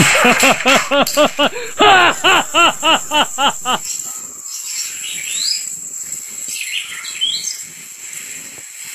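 A fast string of loud, high, rising-and-falling cries, about four a second, that stops about four seconds in; after that it is quieter, with a few faint high chirps.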